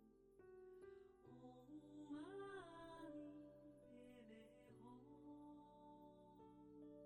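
Quiet, slow ambient music: long held chords with a soft melody line that bends in pitch about two seconds in.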